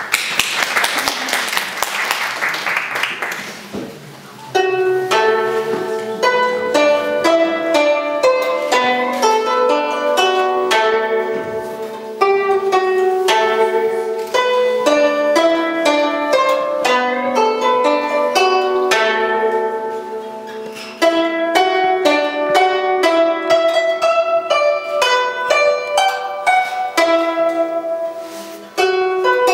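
Solo guzheng (Chinese zither) plucked in quick, lively phrases with short breaks between them, starting about four seconds in after a few seconds of noise.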